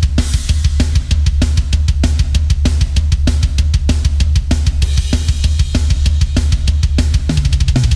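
Programmed software drum kit playing a fast heavy-metal drum part with no other instruments: a rapid, constant bass drum under evenly spaced snare hits and cymbal crashes. Low drums step down in pitch near the end, like a tom fill.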